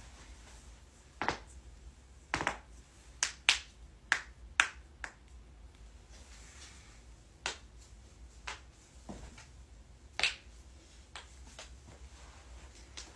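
Joints cracking: a string of about a dozen sharp pops at irregular spacing, the loudest a few seconds in and another about ten seconds in.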